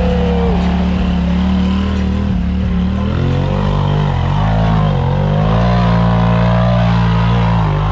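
Off-road vehicle engine running steadily, its revs dropping briefly about four seconds in and then climbing back.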